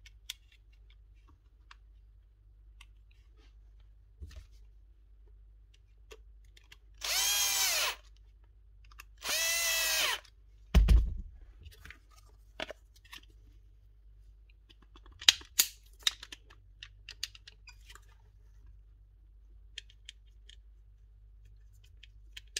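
A small power tool's motor is run twice in short bursts, each spinning up and winding down. Right after comes a heavy thump, then scattered light clicks and knocks of handling parts.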